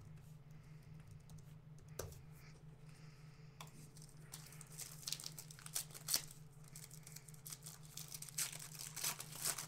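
Shiny trading-card pack wrapper being torn open and crinkled by hand, in a string of crackles from about three and a half seconds in, over a steady low hum.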